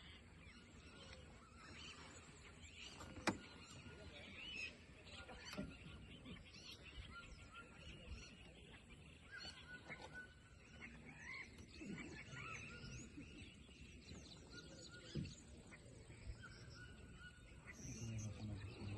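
Many birds calling at once, a faint chorus of short chirps and brief whistled notes overlapping throughout. A sharp click stands out about three seconds in, with a smaller one later.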